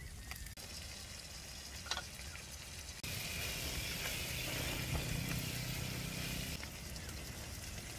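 Chicken pieces sizzling as they brown in a nonstick pan on a portable butane stove, stirred with a wooden spoon. The sizzle is faint at first, then loud from about three seconds in until near the end, starting and stopping abruptly, over a steady low rumble.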